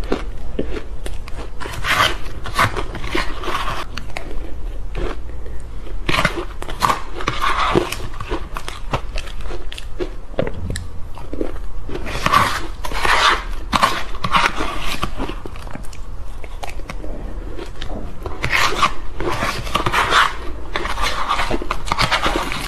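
Chewing of soft, powdery ice: dense crunching in four bouts a few seconds apart. Between mouthfuls a spoon scrapes ice in the tray.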